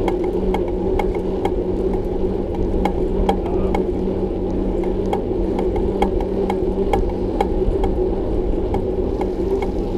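Bicycle being ridden, with a sharp regular click about two to three times a second over a steady rolling hum. The rider put a noise from the bike down to its shock absorber.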